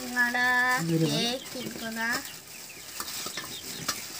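Three short pitched vocal sounds in the first two seconds: a held level note, a lower brief one, then a rising one. They are followed by light crackles and clicks of a plastic snack packet being handled and tipped over a steel bowl.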